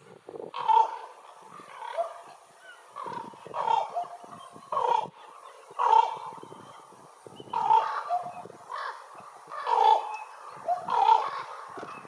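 Ravens calling over and over, about ten short calls spaced roughly a second apart.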